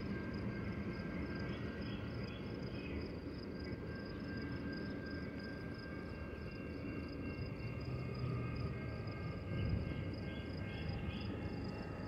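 Outdoor ambience at a railway platform: a low, steady rumble with a fast, even, high-pitched chirping throughout and a few faint higher chirps now and then.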